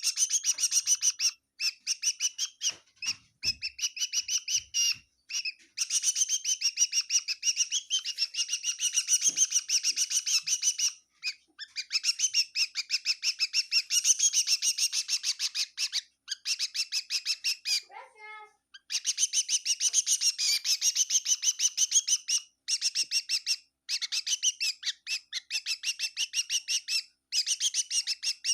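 A small bird chirping in fast, even runs of many chirps a second, broken by short pauses. About two-thirds of the way through, a brief lower call slides down in pitch.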